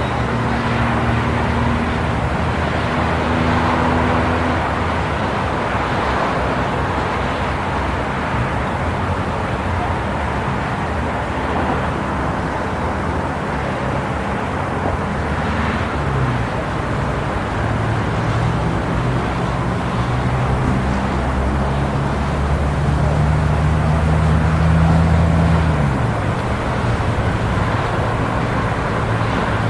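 City street traffic: a steady wash of road noise with car engines humming as they pass. One engine's low hum builds and rises a little in pitch over several seconds, then drops away sharply about three-quarters of the way through.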